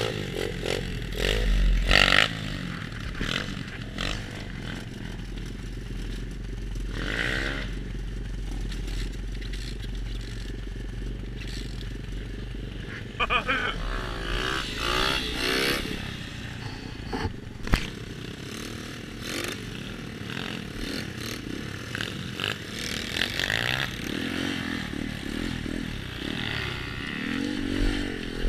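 A 125cc pit bike's single-cylinder four-stroke engine running on a forest trail, the revs rising and falling several times as the rider throttles on and off. Clattering and scraping from the bike over rough ground, with one sharp knock a little past halfway.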